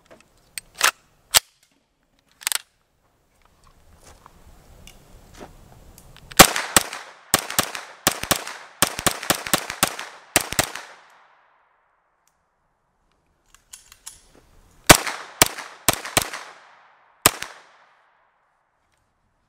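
CZ Scorpion EVO 3 9mm pistol-caliber carbine fired semi-automatic in quick strings: a run of about fifteen shots over four seconds, then after a pause four more shots and a last single shot. A few quieter clicks come in the first couple of seconds.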